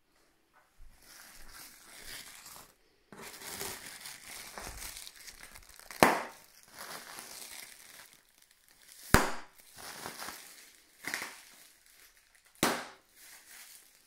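Plastic packaging air pillows being crinkled and squeezed by hand, with three loud, sharp pops about three seconds apart as the pillows burst.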